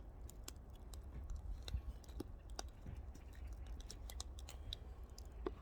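Firewood fire crackling, with irregular scattered pops and snaps over a low steady rumble.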